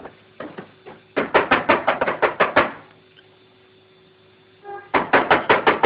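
Knocking on a door by hand, in fast runs: a few single knocks, then a quick series of about eight a little over a second in, and another fast series near the end.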